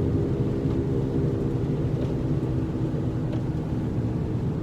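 A car's failing wheel bearing making a steady low drone with several held tones while the car is driven. It is the sign of a worn bearing, and it grows louder with road speed.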